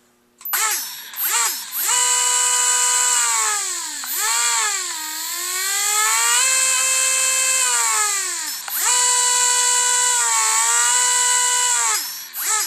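Electric motor of a Traxxas Rustler RC truck on a 2S LiPo, throttled up and down: a loud whine that rises and falls in pitch. It starts with a few quick blips, is held high for several seconds at a time with dips around the middle, and cuts off near the end with more short blips.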